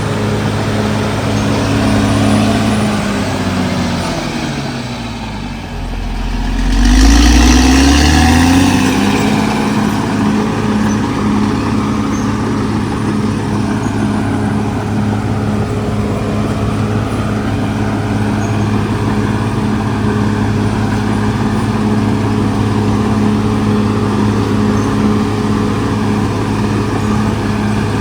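Cat D6R XL bulldozer's diesel engine running under work. A few seconds in, the engine note sinks, then climbs back quickly and is briefly at its loudest before settling into a steady run again.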